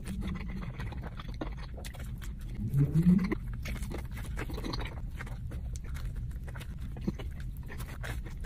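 Close-up eating sounds: biting and chewing a fried chicken sandwich, with many small wet mouth clicks. About three seconds in there is a short rising 'mm'-like voiced sound, and a steady low hum runs underneath.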